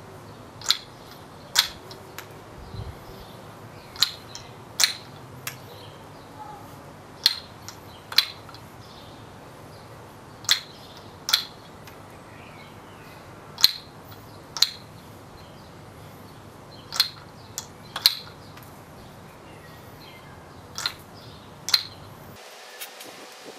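Maple kendama's wooden ball landing on the wooden cups and handle: sharp wooden clacks in pairs about a second apart, a new pair every three seconds or so.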